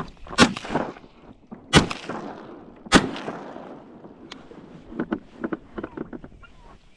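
Three shotgun shots, a little over a second apart, each with a short ringing tail, fired from a kayak. Smaller knocks and splashes follow near the end.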